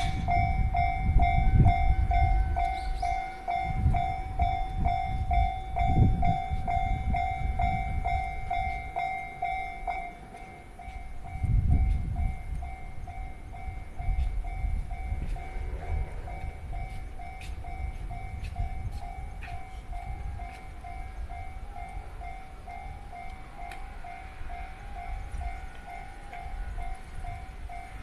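Japanese railway crossing warning bell ringing about twice a second while a JR Chūō Line train rumbles through the crossing. The train is loudest in the first dozen seconds and fades after that, and the bell keeps ringing.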